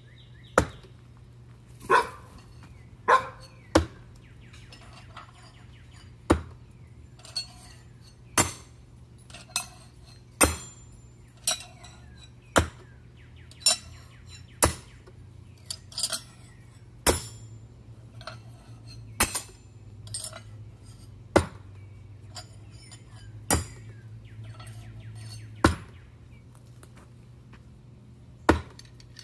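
Steel throwing knives thrown one after another into a target board. Each hit is a sharp knock with a short metallic ring, about one every one to two seconds, with a few lighter clinks of blades against each other.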